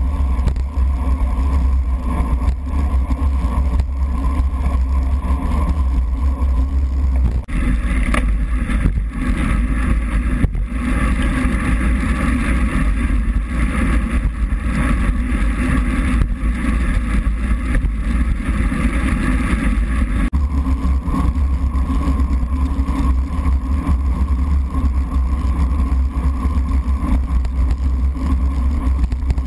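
Steady wind buffeting and road rumble from a racing bicycle on a wet road, heard through a GoPro's sealed waterproof housing. The sound is heavy and muffled, and for about thirteen seconds in the middle it turns brighter, with more hiss.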